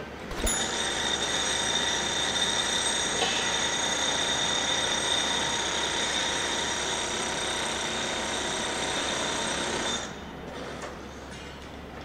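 A machine's steady high whine, several fixed tones over a rushing noise, switching on with a click about half a second in and cutting off suddenly near the end.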